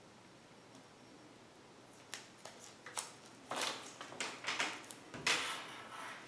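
Hands handling the metal-framed turkey mouth call and its tape on a wooden table: a few sharp clicks and short rustling scrapes, starting about two seconds in, the loudest near the end.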